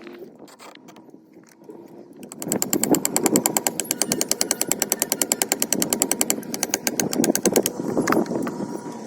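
Rapid, even tapping, about nine sharp strikes a second. It starts about two seconds in and lasts about five seconds.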